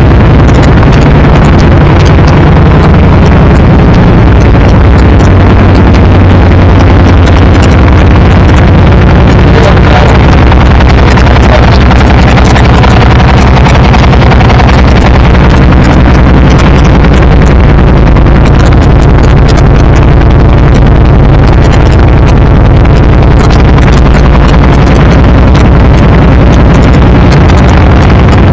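Ducati 999R's V-twin engine running through a Termignoni exhaust, very loud, with its engine speed shifting a little now and then; the recording is overloaded.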